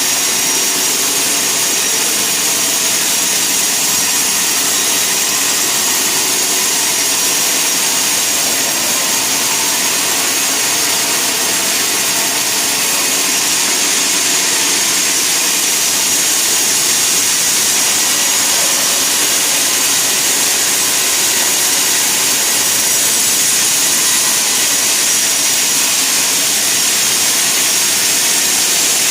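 Sawmill saw cutting through a log: a steady, loud hiss with a high whine that holds without a break.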